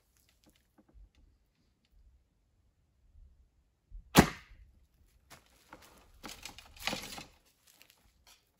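Recurve bow shot: one sharp, loud snap of the string as the arrow is loosed, a little over four seconds in. About two seconds later come softer rattling and clicking sounds of arrows being handled at the hip quiver.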